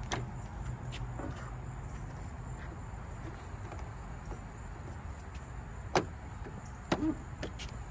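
Hard plastic grille trim of a Honda Accord being handled and pressed onto its clips: a few sharp plastic clicks and knocks, the loudest about six seconds in and a couple more about a second later, over a steady low hum.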